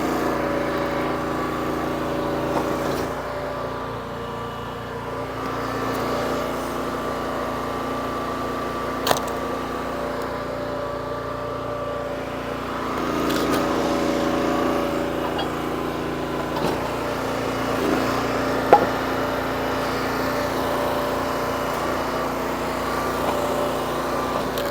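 Small gas engine of a log splitter running steadily, swelling briefly about halfway through. Two sharp knocks of wood cut across it, one a third of the way in and one about three-quarters through.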